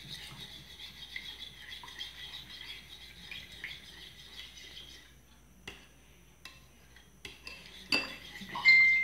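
Metal spoon stirring unflavoured gelatine into water in a ceramic bowl to dissolve it, scraping against the bowl. The stirring goes quieter in the middle with a few light clicks, then a sharp, ringing clink of the spoon on the bowl near the end.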